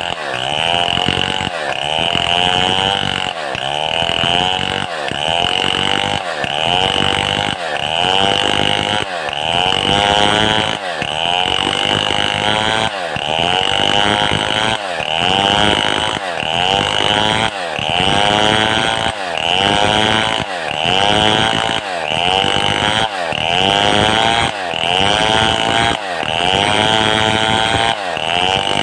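Stihl 070 two-stroke chainsaw running under load as it cuts through a mahogany log. Its engine pitch sags and recovers over and over in an even rhythm, a little slower than once a second, as the load on the chain rises and eases.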